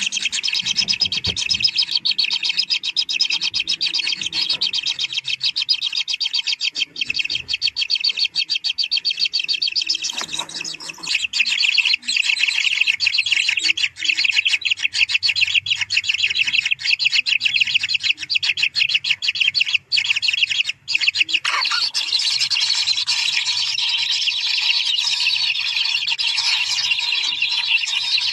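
Kingfisher nestlings begging in their nest burrow: a loud, dense, rapid chatter of high calls, with a short break about ten seconds in.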